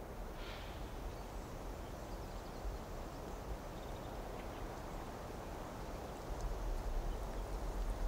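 Steady rush of a small forest creek cascading over rocks, with a low rumble underneath and a few faint high chirps.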